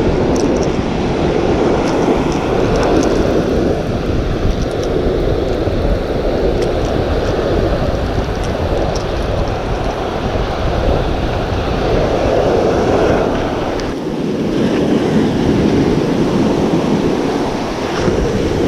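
Steady wind buffeting the microphone, mixed with surf washing up the beach. It eases briefly about fourteen seconds in.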